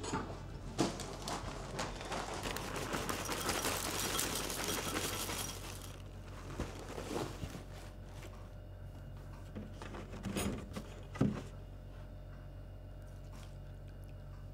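Bran flakes poured from a cardboard box into a ceramic bowl, a dry rustling rattle lasting about six seconds, followed by a few light knocks on the counter.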